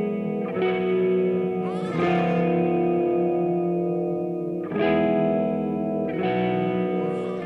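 Rock song intro with no singing: a guitar run through effects plays ringing chords, moving to a new chord every second or two.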